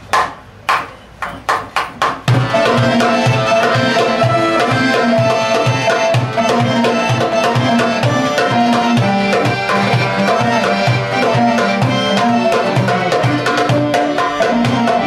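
A hand-played goblet drum sounds a handful of loud solo strokes, then about two seconds in the oud and accordion come in over a steady drum beat and play the tune together.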